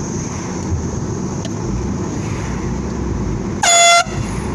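Canned compressed-air horn blasted once near the end: a single short blare, about a third of a second long, loud and at one steady pitch, over a steady low rumble.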